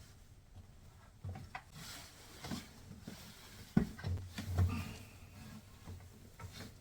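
Hands working a front-load washer's rubber door boot and its spring clamp into place: scattered rubbing and light knocks, with a sharp knock a little before the middle and a few dull thuds just after.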